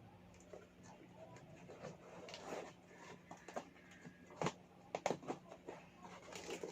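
Faint rustling and scraping with a few light taps and clicks as a small box and its packaging are opened by hand.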